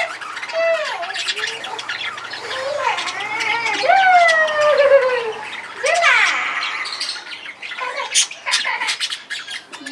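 Pet lovebirds chirping and squawking in a run of short, sharp, irregular calls with sliding pitch.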